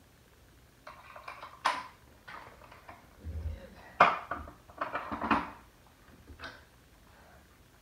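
Metal clinks and knocks as kayak-cart wheels are slid onto a metal axle and pinned in place: a scattering of sharp taps, the loudest about four seconds in, with a dull thump just before it and a quick cluster of clinks about a second later.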